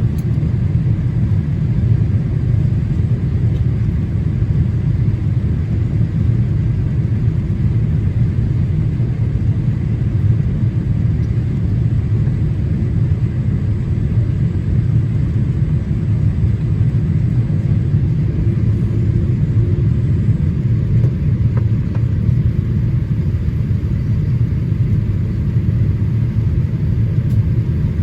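Steady low rumble of engine and airflow noise inside the cabin of a Boeing 787-8 Dreamliner in flight on approach.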